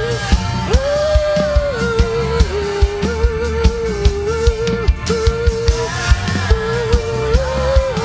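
Worship music: a steady drum beat with bass under a slow melody of long held notes.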